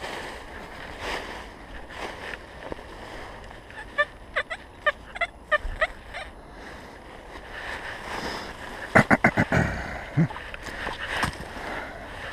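XP Deus metal detector sounding a run of short, repeated pitched beeps as the coil is swept over a buried target, then a faster, louder string of beeps later on. Dry leaves and brush rustle beneath.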